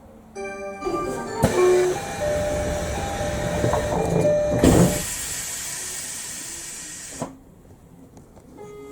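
Tobu commuter train at a station stop: a short electronic chime just after the start, then loud rail noise carrying a steady whine. From about five seconds in comes a loud hiss of released air that fades over two seconds and ends in a click.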